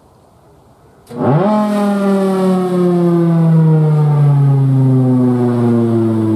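Outdoor warning siren with a single rotating horn starting up with a click about a second in, its pitch shooting up quickly and then sinking slowly as it keeps sounding loudly.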